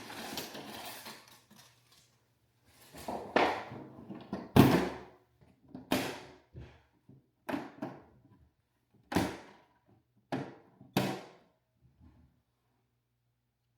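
A series of about seven separate hard knocks and thunks, the loudest about four and a half seconds in, as a new plastic-cased dehumidifier is handled and set in place.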